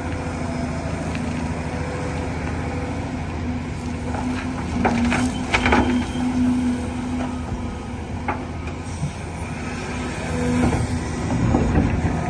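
Diesel engine of a construction machine running steadily, with a cluster of metallic knocks and clanks about five seconds in and another sharp knock a few seconds later.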